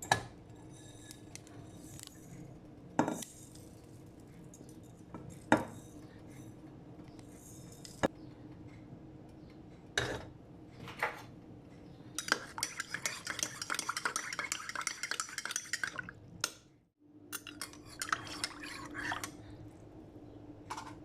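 Utensils clinking against a dish: single sharp clinks every few seconds, then a few seconds of fast stirring and scraping beginning about twelve seconds in, over a steady low hum.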